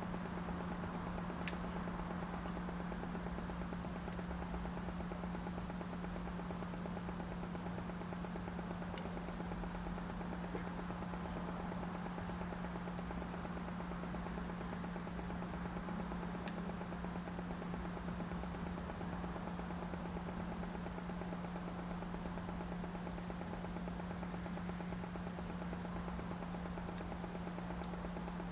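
Steady low electrical hum under a soft hiss, with a few faint sharp clicks scattered through.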